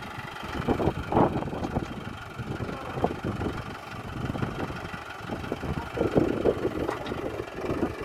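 Mahindra Arjun NOVO 605 DI tractor's diesel engine running while it drives the backhoe's hydraulics as the bucket digs into soil. The sound swells louder about a second in and again around six seconds in.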